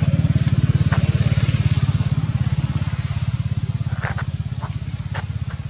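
A small engine running steadily with a low, fast-pulsing rumble, with short high chirps repeating over it.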